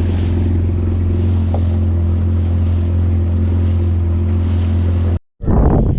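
Boat motor running at a steady pitch while under way, with wind and water noise over it. It cuts off abruptly about five seconds in, and louder, choppier wind and water noise follows.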